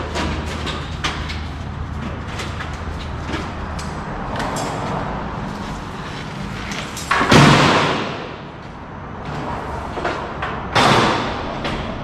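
Two loud bangs about three and a half seconds apart, each dying away over about a second, with a low steady hum that stops about four seconds in.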